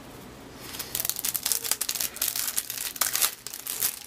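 Crinkling and rustling of baseball cards and their packaging handled by hand, a dense run of small crackles starting about half a second in.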